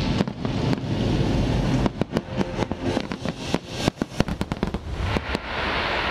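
Aerial fireworks bursting: a rapid run of sharp bangs from about two seconds in, giving way near the end to a steady hiss.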